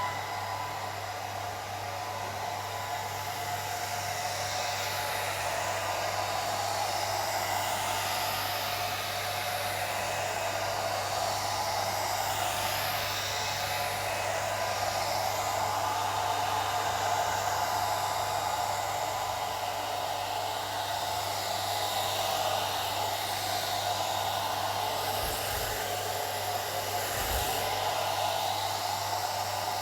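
Old hair dryer running continuously, a steady rush of blown air over a low motor hum.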